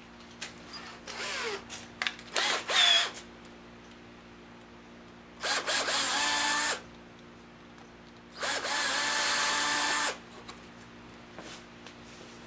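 Electric drill run twice, each time spinning up with a rising whine and then holding steady as it bores into the small outboard's lower cowling. A few short rattles of handling come before the first run.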